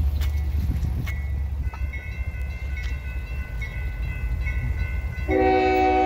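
Diesel locomotive horn sounding a loud multi-note chord, starting abruptly about five seconds in, over the low rumble of the approaching train, with the grade-crossing bell ringing.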